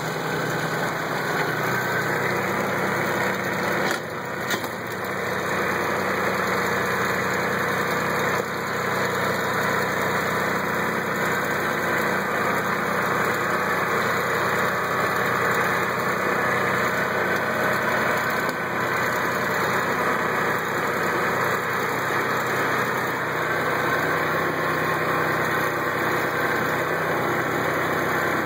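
Kubota tractor's diesel engine running steadily under load while skidding a chained log over the forest floor.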